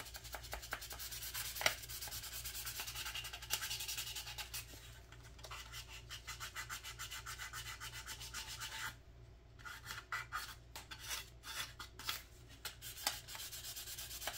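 Fine-grit sanding pad rubbed in quick back-and-forth strokes over a red styrene plastic model-car kit part, with a short pause about nine seconds in. The plastic is being roughed up so the primer will stick.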